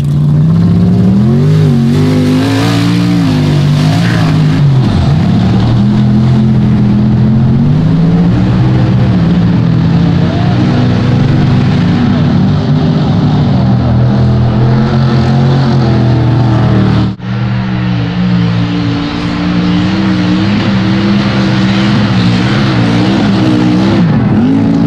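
High-horsepower mud bog truck engines at high revs, the pitch climbing and falling as the throttle is worked through the mud pit. The sound breaks off for an instant about two-thirds of the way through, then picks up again.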